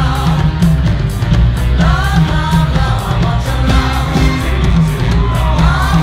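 Loud dance music with a steady beat and heavy bass, with a singing voice gliding in pitch over it.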